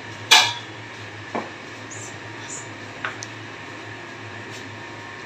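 A few sharp clinks and knocks of kitchenware, the loudest just after the start, over a steady low hum.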